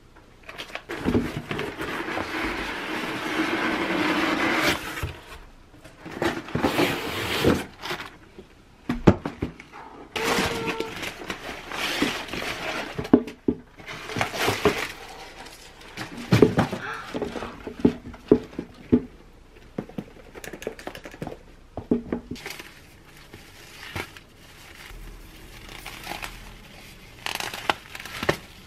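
Packaging being handled during an unboxing: a few seconds of steady rustling near the start, then irregular crinkling of paper and tissue paper and the scrape of a cardboard shoebox, with several sharp knocks of boxes and objects on a table.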